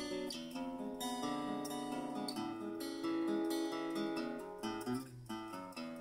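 Crafter acoustic guitar played solo: plucked notes and chords ringing into one another, with a brief drop in level about five seconds in before the next phrase.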